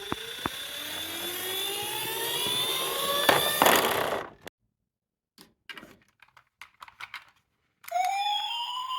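A toy car's rising whine, climbing steadily in pitch and growing louder for about four seconds, ends in a few sharp clicks. Small clicks follow. About a second before the end, a miniature emergency vehicle's electronic siren starts up, wailing up and down.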